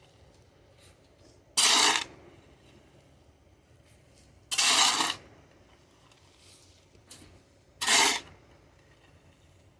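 Steel shovel blade scraping across a concrete slab, pushing off packed dirt: three short scrapes about three seconds apart.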